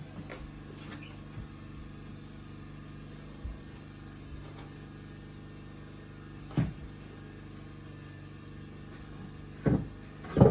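A few sharp knocks of pallet-wood boards and tools being handled against a wooden cabinet frame, the loudest near the end, over a steady low hum.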